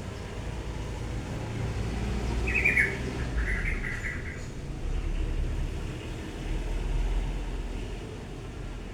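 A prenjak (prinia) chirping while held for leg ringing: two short runs of high chirps a few seconds in, over a steady low background rumble.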